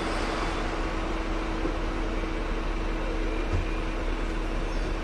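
Steady hum and rumble inside a Hong Kong double-decker electric tram, with one constant low tone running through it.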